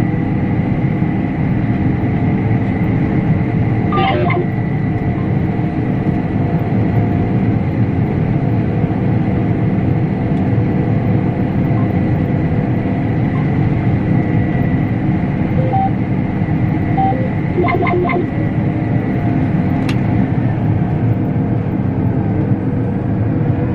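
Heavy farm harvest machinery running steadily under load: a dense, even engine-and-machine drone with a steady high whine over it. A couple of brief, light mechanical sounds come through about four seconds in and again around eighteen seconds.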